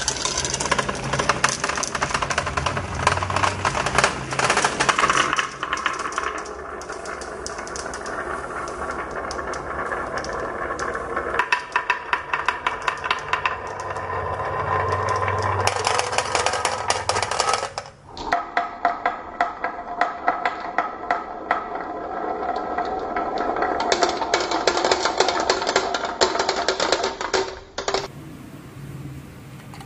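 Marbles rolling and clattering down a marble run, with rapid rattling clicks over a steady rolling rumble. The sound changes abruptly about 11 and 18 seconds in and again near the end.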